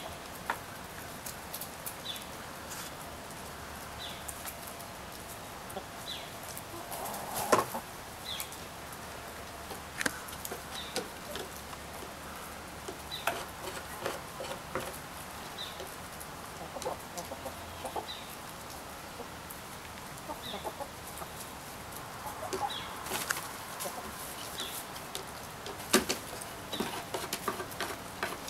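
A backyard flock of hens (Rhode Island Red, Welsummer, Partridge Rock, Golden Laced Wyandotte) clucking softly while they feed on popcorn, with sharp pecking taps on wooden boards; two of the taps are louder, one about a quarter of the way in and one near the end. A faint short high chirp repeats about once a second.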